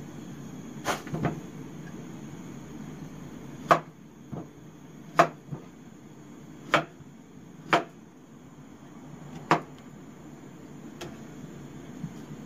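A large kitchen knife chopping through peeled banana and striking the cutting board: about seven sharp knocks, an irregular second or two apart, with a few fainter ones between, over a steady low hum.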